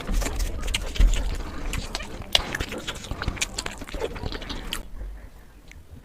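Close-up eating sounds: a rapid run of clicks and crunches from chewing and handling food, dying away about five seconds in.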